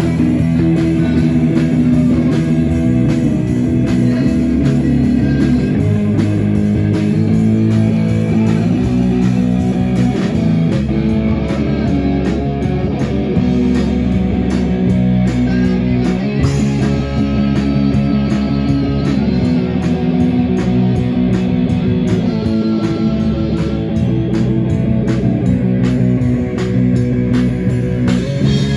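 Pop-metal band playing live, with electric guitar to the fore over bass guitar, drum kit and keyboard. The cymbals come up more strongly about ten seconds in.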